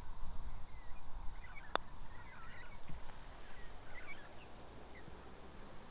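Birds calling outdoors in short chirps over a steady low rumble of wind, with one sharp click nearly two seconds in.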